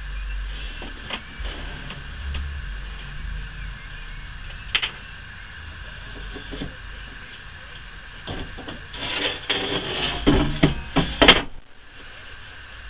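Scattered knocks, then a run of clattering and clanks from about eight seconds in, loudest just before it stops suddenly, over a steady hum.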